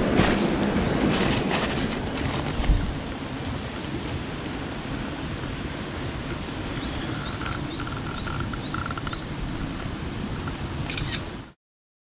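Mountain stream running over rocks, a steady rushing, with a few knocks and a low thump in the first three seconds. In the second half a small bird gives a string of about six short rising chirps. The sound cuts off suddenly near the end.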